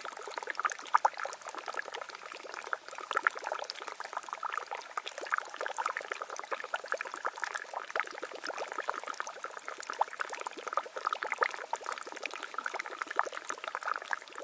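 Small mountain spring trickling and splashing over mossy rock: a steady, busy patter of little splashes and gurgles.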